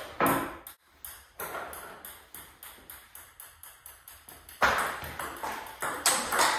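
Table tennis ball clicking: a quick, evenly spaced run of light ball taps fading slightly, then from about four and a half seconds in louder paddle hits and table bounces as a forehand topspin-loop rally with Hurricane 3 Provincial Neo rubber gets going.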